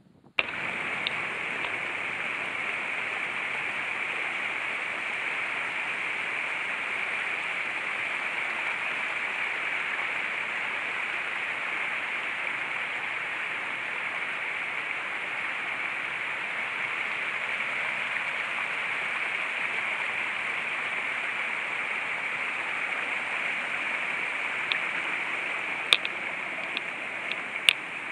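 Small woodland brook cascading over boulders, a steady, even rush of water. A few sharp clicks near the end.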